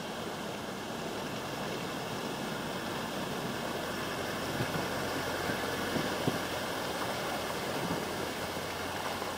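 Land Rover Defender wading through a shallow river ford: its engine runs low under the steady rush of flowing water and the wash around its wheels, growing a little louder as it passes close by, with a few sharp knocks midway.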